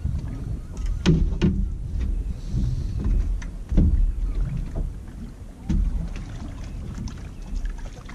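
Knocks and bumps as a person moves about a small open boat and handles a bucket, over a steady low rumble of wind.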